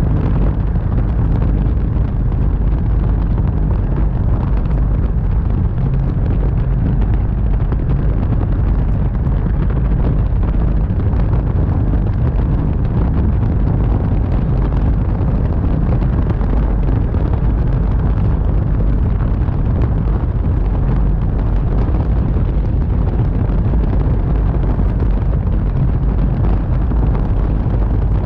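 Light aircraft in flight, heard from a camera under its wing: a steady, loud, deep rumble of airflow buffeting the microphone over the engine and propeller drone.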